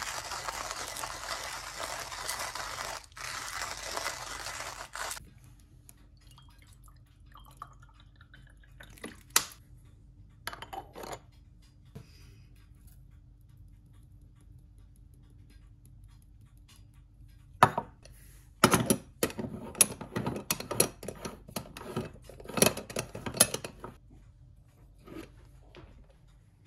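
Hand coffee grinder being cranked, a dense grinding rasp for about five seconds that stops abruptly. After a near-quiet stretch with a few faint taps comes a quick run of metallic clinks and knocks as the aluminium moka pot is handled.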